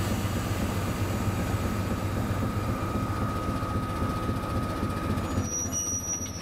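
Class 73 electro-diesel locomotive's diesel engine idling at standstill: a steady low rumble, with a steady high whine over it that fades about five seconds in. The locomotive is running on its diesel engine because the line's electric supply is off.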